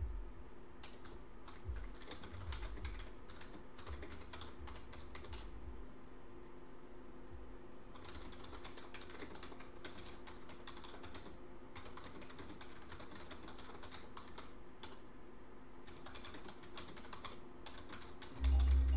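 Typing on a computer keyboard in four runs of rapid keystrokes, over a faint steady hum. A loud low thump comes near the end.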